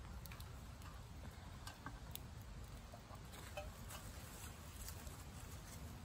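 Small wood fire crackling under a grill: faint, sparse, irregular ticks and pops.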